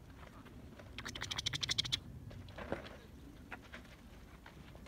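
Mountain bike coasting down a rocky dirt trail. For about a second the rear hub ticks fast and evenly, then a single knock comes as a tyre strikes rock, over the faint rumble of the tyres rolling.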